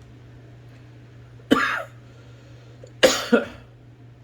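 A person coughing: one cough about a second and a half in, then a double cough about three seconds in, over a steady low hum.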